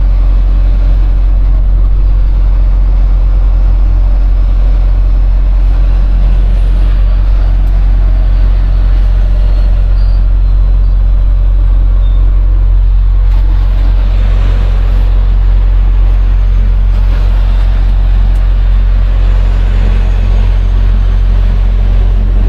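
Semi truck's diesel engine running steadily, a continuous deep low rumble.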